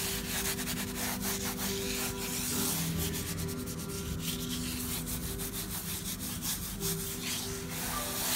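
Bare hand and fingers rubbing mineral pigment into scored paper: a dry, scratchy swishing in quick repeated strokes.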